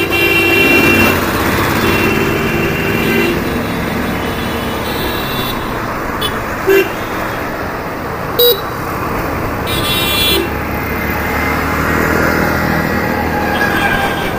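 Hero Destini 125 FI scooter's single-cylinder four-stroke engine running under way in city traffic, with road noise. Vehicle horns sound over it: a longer honk at the start, two short toots about seven and eight and a half seconds in, and another brief honk around ten seconds.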